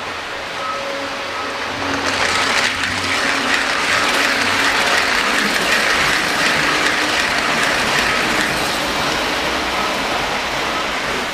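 Lionel O gauge model passenger train rolling past close by, its wheels clattering over the track. The clatter swells about two seconds in and fades away near the end, over the steady running noise of other trains on the layout.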